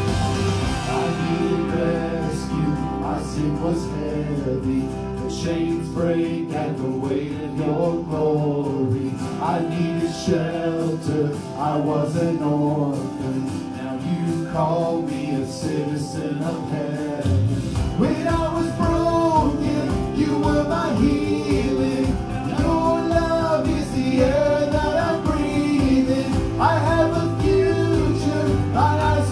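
Live worship band music with a voice singing a wavering melody over sustained chords; the bass and a steady beat come in a little past halfway.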